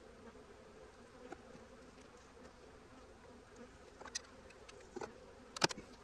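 Honey bees buzzing steadily over an open hive, with a few sharp wooden knocks of hive frames being shifted in the box, about four, five and nearly six seconds in, the last one the loudest.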